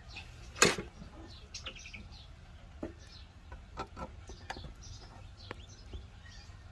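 One sharp knock about half a second in, then faint bird chirps and a few light clicks over a low steady hum.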